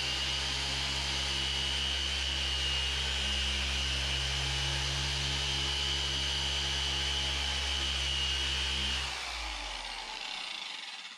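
Maxshine dual-action random orbital polisher with a 15 mm throw running at a steady speed with its pad on a plastic tail light lens, a constant hum with a thin whine over it. About nine seconds in it is switched off and winds down to a stop.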